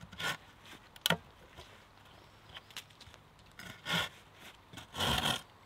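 Saw cutting kerfs across a wooden log: a few separate short strokes of the blade through the wood, with a sharp click about a second in and two longer strokes near the end.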